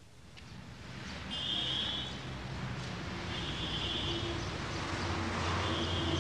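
A vehicle running, its low hum and noise swelling up over the first two seconds and then holding steady. A high chirping sound comes in three short bursts, about every two seconds.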